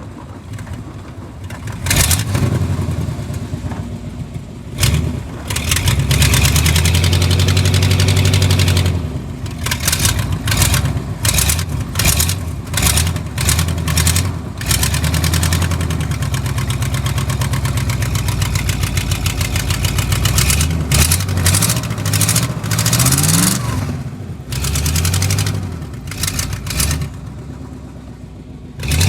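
Vehicle engine revving in repeated bursts, its pitch rising and falling over and over, as the driver tries to power a vehicle stuck in snow free.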